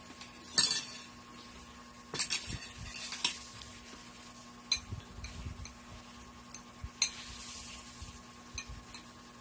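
A metal spoon and fork clinking and scraping against a plate and a soup bowl while eating: scattered sharp clinks, the loudest about half a second in, with lighter scrapes between.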